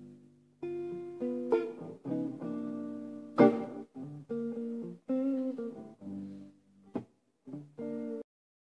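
Guitar opening a slow blues, playing single notes and chords in short phrases with brief pauses between them. A sharp accented stroke about three and a half seconds in is the loudest moment.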